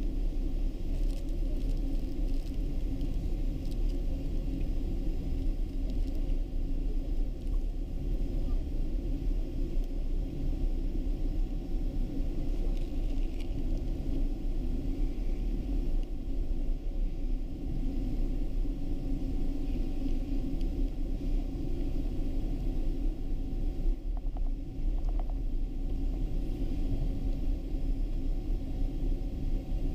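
Boeing 777-200 taxiing with its engines at idle, heard inside the cabin as a steady low rumble with a constant hum.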